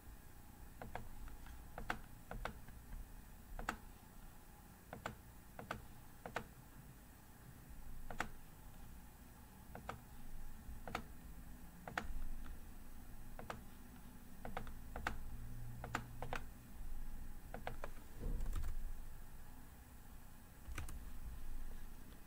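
Scattered sharp clicks of a computer mouse, some in quick pairs, as parts are picked and placed in a schematic program, over a low room hum. A dull thump comes about eighteen seconds in.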